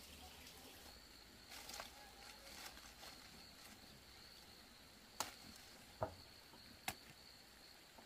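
Near silence with a faint steady high-pitched tone, broken by three sharp clicks a little under a second apart in the second half.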